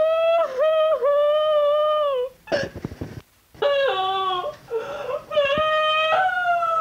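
A woman wailing and sobbing in high, drawn-out, wavering whimpers, with a short breathy break about two and a half seconds in. The crying is exaggerated and comic.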